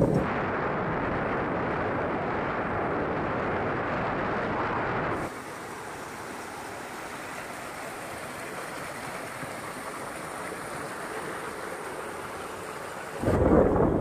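A steady rushing noise, then a sudden change about five seconds in to a quieter, even rush of stream water pouring over a small concrete weir. The water sound lasts about eight seconds before loud rushing noise cuts back in near the end.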